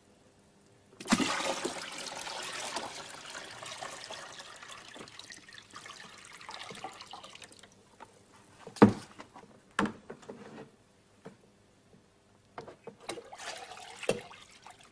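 Water pouring into a conical tank, filling it: a steady splashing rush that starts about a second in and fades away after about seven seconds. A few sharp drips and knocks follow, then some small splashes near the end.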